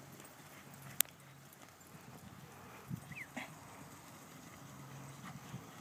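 Cattle hooves trampling on dry dirt as a mob is moved, faint, with a single sharp click about a second in.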